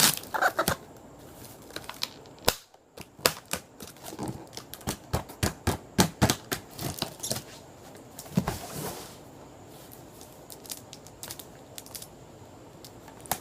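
Cardboard box being opened and handled: a scattered series of sharp clicks, taps and knocks, with a longer scraping rustle about eight and a half seconds in.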